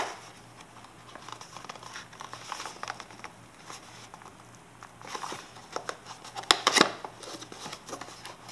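Thin cardboard box being pried and slid open by hand: scraping and rustling of card against card, with a few louder snaps of flaps and tabs in the second half.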